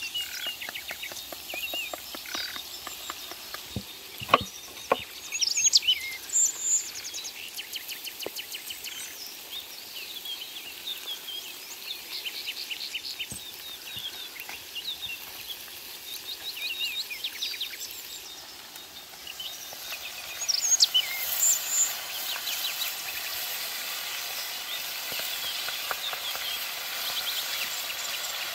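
Songbirds chirping and calling on and off, with a few sharp knocks as a knife handle taps pomegranate seeds out of a halved fruit.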